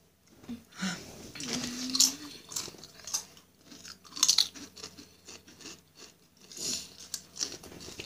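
Doritos tortilla chips being bitten and chewed close to the microphone: irregular crisp crunches, loudest about two seconds in and again about four seconds in.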